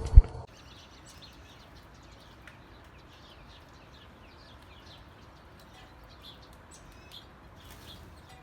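A loud thump right at the start, then the sound drops abruptly to many faint, quick chirps of small birds.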